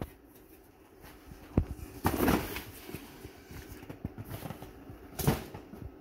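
Handling noise: a few scattered knocks, a short scraping rustle about two seconds in and a sharper knock about five seconds in, as boxed figures and packaging are moved around.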